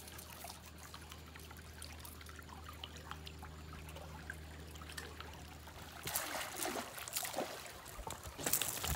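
Water trickling and lapping beside a boat, over a steady low hum that stops about six seconds in. In the last three seconds there is louder, rougher water noise with a few knocks.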